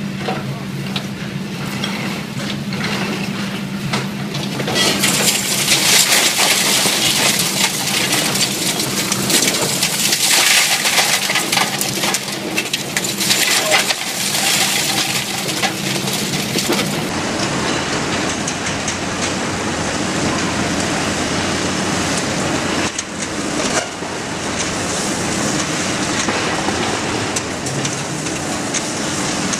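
Demolition excavator running, with its hydraulic crusher jaw breaking into a concrete building. From about five seconds in there is loud crackling and clattering of concrete breaking and rubble falling. After a change partway through, a steadier rumble of demolition debris follows.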